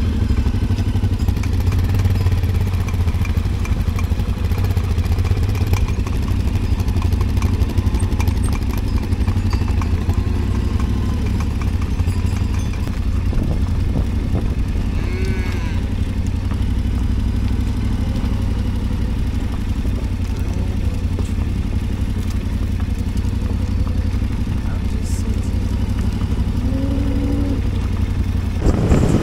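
Motorcycle engine running steadily at a low, even pitch while riding, with faint voices at times.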